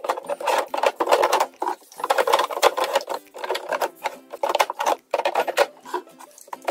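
Plastic setting-spray bottles clattering and knocking against each other and the drawer as they are moved around and stood in place: a busy run of small knocks and rattles.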